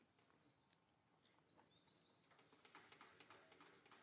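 Near silence with faint outdoor ambience: a few faint, short bird chirps and a brief spell of faint clicking and rustling in the second half.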